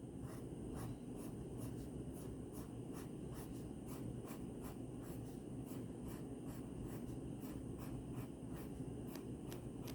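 Pencil or pen scratching on paper in short repeated strokes, a couple a second: tassels being drawn on a picture.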